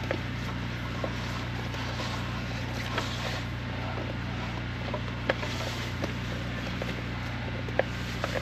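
Drain jetter's engine running steadily with a low, even hum, with a few short clicks and knocks scattered over it.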